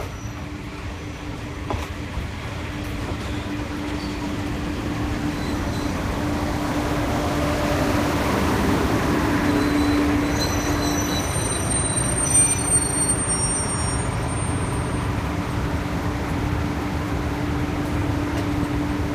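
Two-car diesel railcar pulling into a station: its engine drone grows louder as the cars draw level and pass. About eleven seconds in, the brakes squeal high for a few seconds as it slows to a stop, and the engine then runs on at idle.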